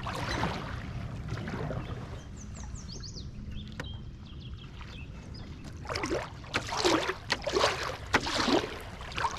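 Canoe paddle strokes in the water: four swishing, splashing strokes in quick succession in the second half, over a steady low rumble. A few faint high chirps come a couple of seconds in.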